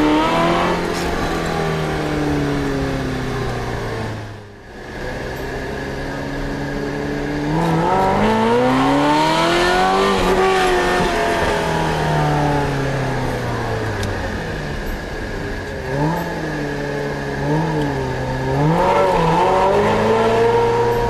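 Ferrari 348TS V8 with a modified exhaust, its engine speed rising and falling repeatedly: a sudden drop about four and a half seconds in, a long climb to a peak about ten seconds in that slowly falls away, then several quick blips of the throttle and a final rise near the end. It is very loud.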